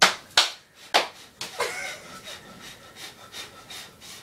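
A person breathing hard and fast, hyperventilating while crouched to make herself faint: three loud breaths in the first second, then quicker, fainter breaths.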